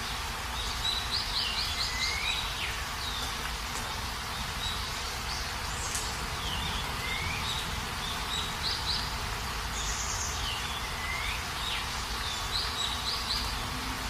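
Steady heavy rain with a bird calling several times over it, each call a few short chirps and a falling note.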